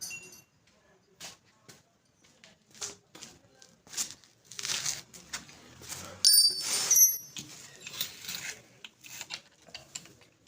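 Drill bits being handled while the bit in a drill is changed: scattered clicks and light metal clinks, with a louder jangle of ringing metal about six seconds in.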